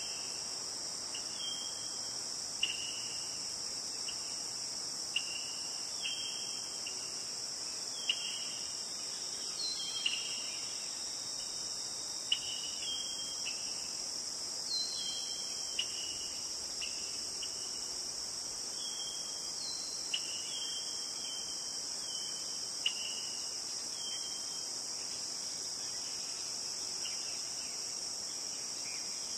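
Crickets chirping: a steady high trill, with short separate chirps recurring about every second and a few soft clicks.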